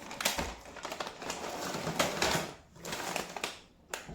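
Cardboard box and packaging of an action camera being opened and handled: rustling with many quick clicks and scrapes, easing off briefly near the end.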